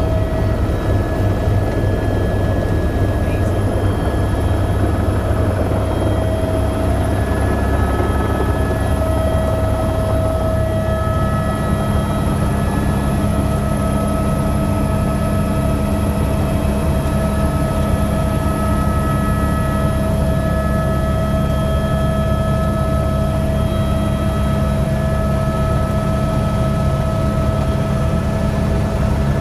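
Helicopter running steadily as heard from on board: a rapid low rotor beat under several steady engine tones and a high turbine whine.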